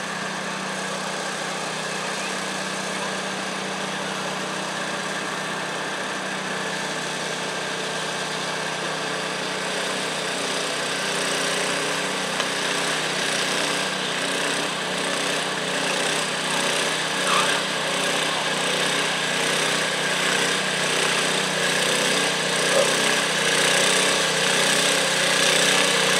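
Garden tractor engine running steadily at low speed, with the engine of the larger stoneboat machine close behind it. The sound grows gradually louder as they come closer.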